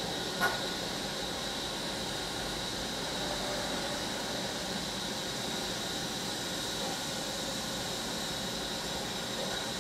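Christ automatic car wash running in its bay, a steady hissing rush with a faint high steady whine, heard from inside a car. A single click about half a second in.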